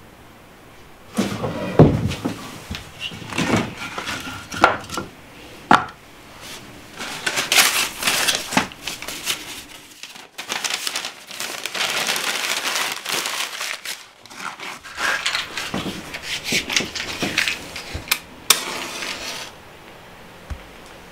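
Newspaper rustling, tearing and crumpling, with wooden knocks, as kindling is laid in a wood-burning stove. There are several sharp knocks in the first few seconds, then long stretches of crackling paper, and the handling stops a couple of seconds before the end.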